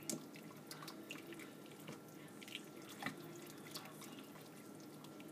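Silicone whisk stirring a hot, bubbling flour-thickened sauce in a pan: faint, irregular soft pops and taps, a few a second.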